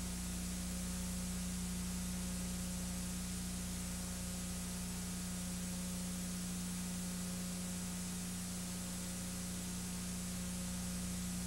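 Steady hiss with a constant low electrical hum and nothing else: the noise floor of a silent home movie's transfer.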